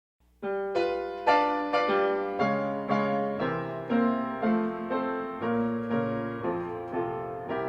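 Solo piano playing a slow, simple tune. It starts about half a second in, and a new note or chord is struck roughly twice a second, each one dying away.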